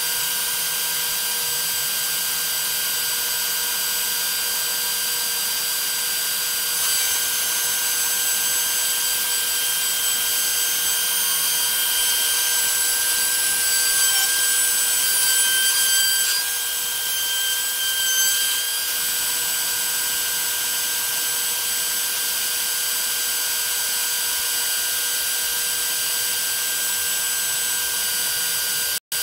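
DeWalt 611 router on an MPCNC LowRider2 CNC milling ¼-inch aluminium plate with an end mill: a steady high whine over the cutting noise. It grows louder from about seven seconds in to about eighteen, and the sound drops out for an instant just before the end.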